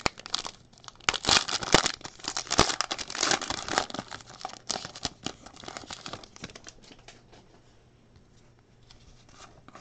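Foil trading card pack being torn open and crinkled by hand, a dense crackly rustle for about the first five seconds. It then fades to faint rustling as the cards are taken out.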